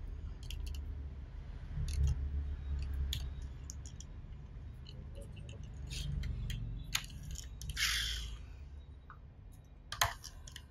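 Pull-back motor of a 1:32 diecast McLaren P1 model car being wound: the car is rolled back across a tabletop with small clicks and a low rolling rumble. A brief whirr comes about eight seconds in, and a sharp knock near the end as the car is set down.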